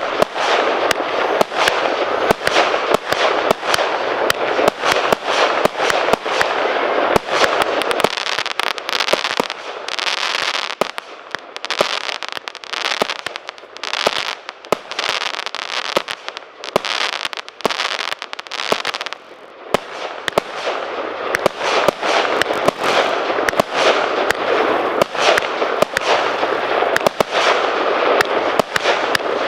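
Celtic Fireworks Tardis 2 firework barrage firing: a rapid stream of sharp bangs and cracks over a constant crackling hiss. It thins out and quietens for about ten seconds in the middle, then builds back up to a dense volley.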